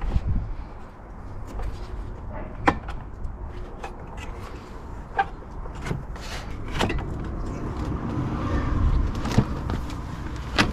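About half a dozen sharp clicks and knocks at irregular spacing as a new aluminium air-conditioning condenser is handled and pushed into its mounts at the front of a car, over a low rumble.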